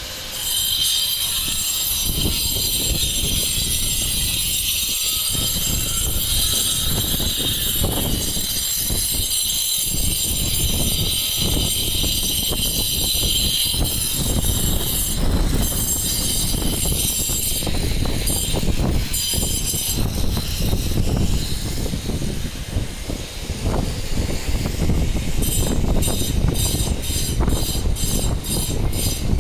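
A machine running steadily, with a high whine over a rough low rumble. From about 25 seconds in, the whine pulses about twice a second.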